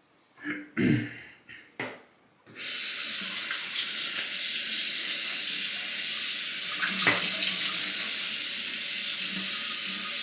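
A few short knocks and handling sounds, then a water tap is turned on about two and a half seconds in and runs steadily into a sink.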